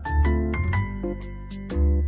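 Background music with a steady beat: bass notes, bright chimes and percussion.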